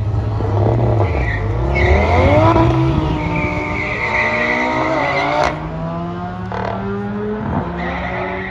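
A BMW S1000RR superbike and an Audi TT launching off a drag-strip start line: engines revving hard and climbing through the gears from about a second in, with a high tyre squeal, loudest a couple of seconds in. The engines then drop away abruptly and run on lower and fainter as they pull away down the track.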